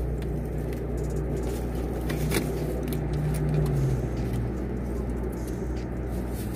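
Steady low hum inside a parked car's cabin, with faint small clicks and rustles of people chewing and handling fast food.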